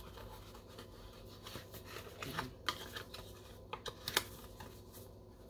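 Faint handling noise from a camera lens mount adapter and its small box: scattered light clicks and rubbing, with the sharpest click about four seconds in.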